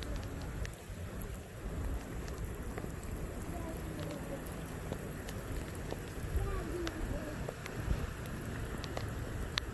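Steady rain falling, with scattered sharp ticks of drops hitting a nearby surface.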